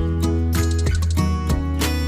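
Background music: acoustic guitar strumming over a steady bass line.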